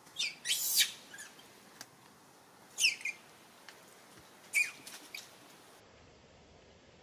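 Infant long-tailed macaque squealing as an adult male grips and handles it: shrill, high cries that fall in pitch, in three bouts, the first near the start, then about three seconds in and again about four and a half seconds in.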